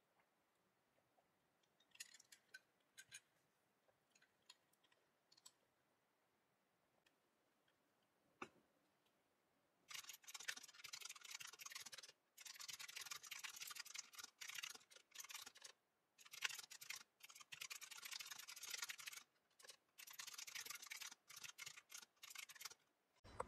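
Typing on a keyboard with round, typewriter-style keycaps: a fast, continuous clatter of key clicks with a few short pauses, starting about ten seconds in. Before that, only a few faint scattered clicks.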